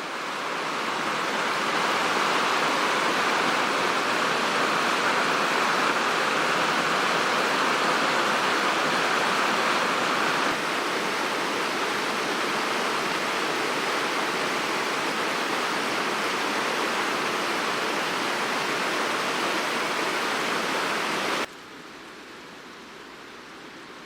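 Steady rushing of flowing water, strongest in the mid-range, which drops abruptly to a much quieter hiss near the end.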